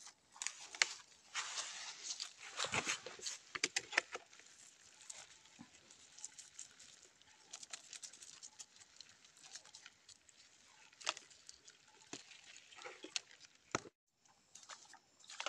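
Irregular rustling, crackling and light pattering from a mesh fish trap being shaken out and small fish being emptied into a plastic bucket, with scattered sharp clicks.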